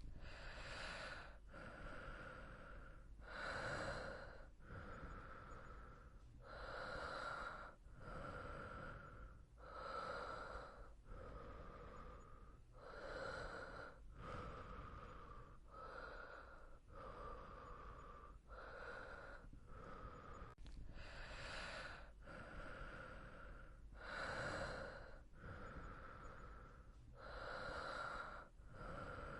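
Soft, slow breathing of a sleeping person: in- and out-breaths alternate in an even rhythm, about one full breath every three seconds.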